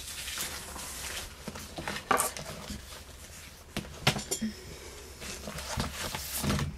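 Rustling and a few light knocks as books and magazines are shifted and picked up from a pile.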